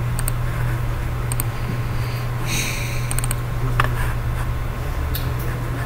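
Steady low electrical hum of the recording, with a few scattered sharp clicks of a computer mouse and a short hiss about halfway through.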